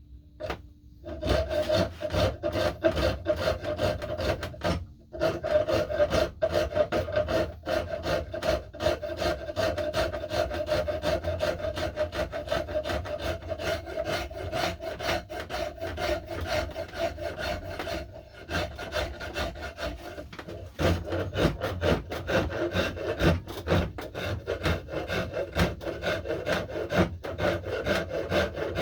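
Rapid back-and-forth abrading strokes on the wooden knob of an axe handle, being shaped by hand. The strokes start about a second in and run on with one short pause.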